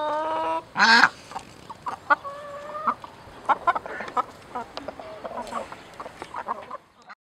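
Hens clucking close by in a string of short calls, with one loud squawk about a second in; the sound cuts off just before the end.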